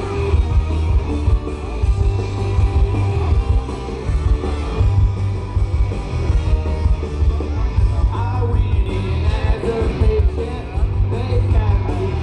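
Live rock band playing through a large outdoor PA, recorded from the crowd: heavy bass and drums with electric guitar, and a singer's voice coming in about eight seconds in.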